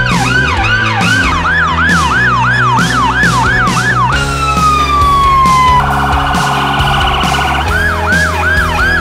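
Emergency vehicle siren in a fast yelp, sweeping up and down about twice a second. About four seconds in it changes to one long falling tone, then a rapid buzzing warble, then goes back to the yelp. Music with a steady beat plays underneath.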